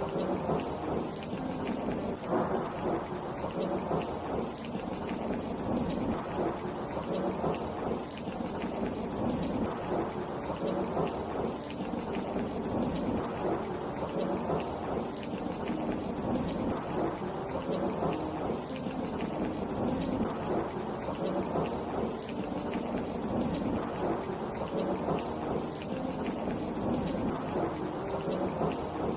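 Steady rain falling without a break, with a low rumble of thunder mixed into it.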